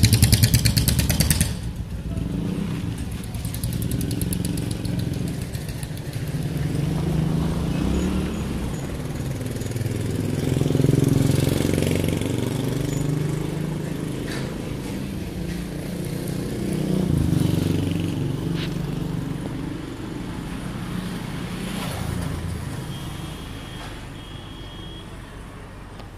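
A motor vehicle's engine running, loudest in the first second or two, then rising and falling several times and fading toward the end.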